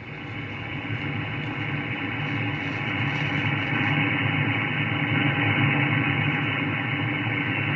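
Shortwave receiver audio of HF band noise: a steady buzzing hiss with an underlying low hum, cut off above about 3 kHz by the receiver's filter, growing louder over the first few seconds. It is radio-frequency interference holding the noise floor at about S6 to S7.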